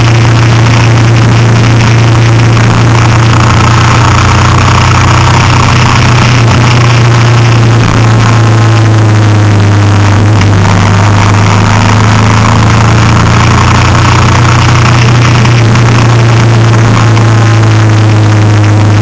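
A vehicle's engine running steadily at road speed, heard from on board, with road and wind noise. It is loud and unchanging.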